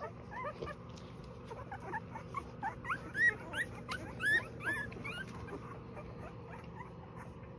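A litter of twelve-day-old Rottweiler puppies squeaking and whimpering: many short, high, rising squeals, thickest in the middle and thinning out after about five seconds. These are hungry puppies calling to nurse.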